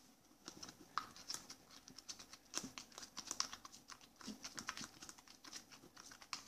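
Plastic spoon stirring a foamy mix of slime, liquid soap and water in a plastic cup: faint, quick, irregular clicks and wet squishes as the soap whips into foam.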